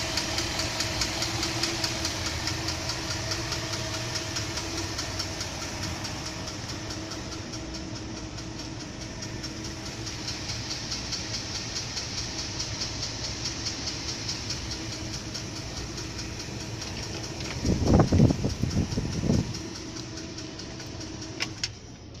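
1959 Ford V8 engine idling steadily on its freshly repaired carburetor, with an even, rhythmic running. Near the end a louder, uneven burst lasts about two seconds.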